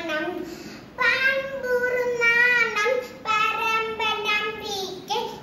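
A young girl singing solo and unaccompanied, holding long notes, with a short breath pause about a second in.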